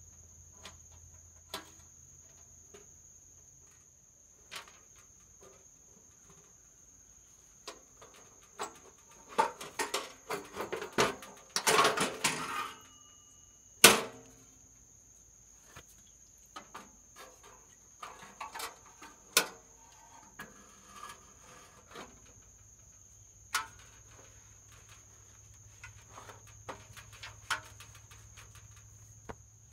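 Metal clicks and clatter from a vintage Coleman 425E camp stove being opened and set up and its red fuel tank fitted, busiest a third of the way in, with one sharp loud click shortly after. A steady high drone of insects runs underneath.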